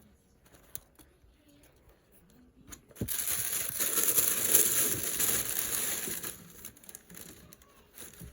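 Packing material being crinkled and crumpled by hand, loud and dense for about three seconds from about three seconds in, with a few faint clicks before it and softer rustles after.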